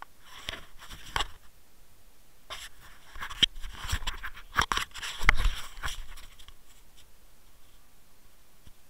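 Handling noise on a small action camera: bouts of scraping, rubbing and knocks against its body as it is picked up and turned around, with the loudest knock a little past the middle.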